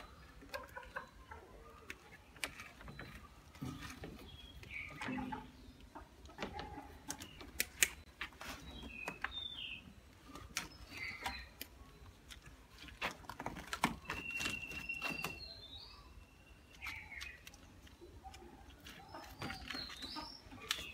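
Scattered light clicks and taps of pliers and copper wires being twisted and handled inside a metal distribution board, with short high chirps in the background.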